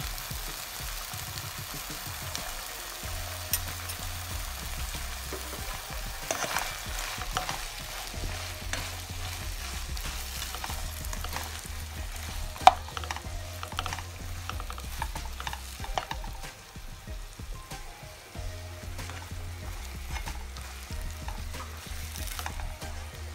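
Vegetables frying in ghee in a pan, a steady sizzle, with a utensil stirring and scraping through them. There are many short knocks against the pan, and one sharp clack about halfway through is the loudest.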